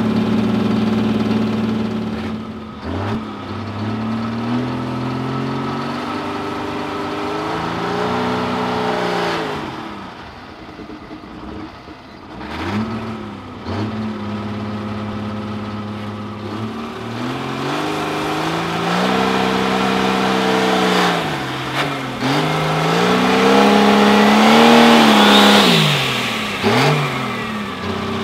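International DT466 turbo-diesel engine with three Hypermax turbochargers, in a dragster, running at a steady idle and then revved up and down several times in blips and longer pulls. Near the end, a high whistle climbs and falls with the revs as the turbos spool up.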